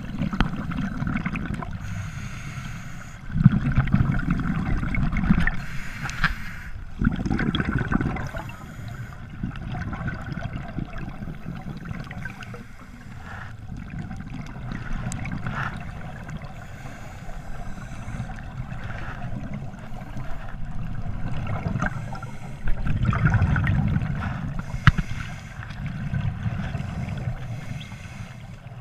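A scuba diver's exhaled bubbles gurgling and rumbling past the camera in several bursts a second or two long, heard underwater through the camera housing over a steady muffled hiss, with a few sharp clicks.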